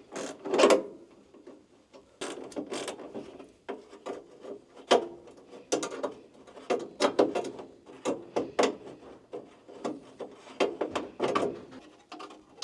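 Ratchet clicking in short, irregular bursts while screws are backed out of a truck's dash, with scattered clatter between the bursts.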